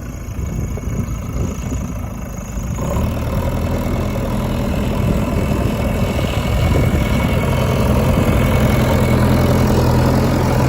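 Diesel engine of earthmoving machinery running. It is a rough rumble at first, then from about three seconds in a steady engine note that slowly grows louder.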